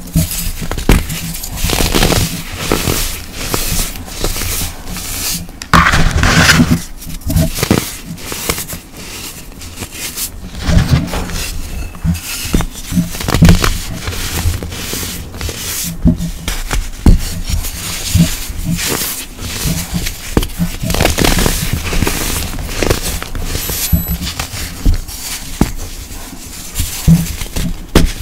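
Hands squeezing and crumbling pressed chunks of baking soda into powder: a continuous run of irregular crunches and crackles.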